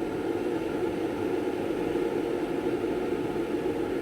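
Steady hum and hiss of a kitchen appliance running while water heats, even throughout.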